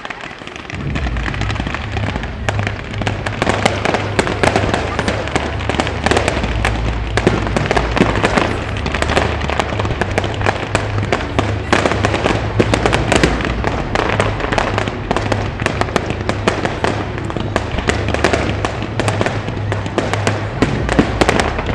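Fireworks display going off in dense, rapid crackling and popping that starts about a second in and keeps on without a break, over a steady low rumble.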